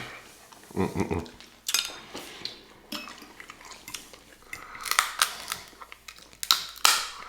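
Eating sounds: utensils clinking and scraping against dishes in a string of separate strokes, with chewing between them. The loudest clink comes near the end.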